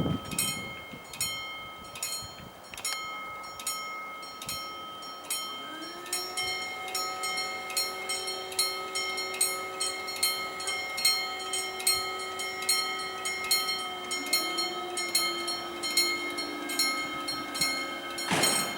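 Level crossing warning bell ringing with regular strikes, a little more than one a second. About six seconds in, a steady whine rises in pitch and holds under the bell. A second one rises near the end.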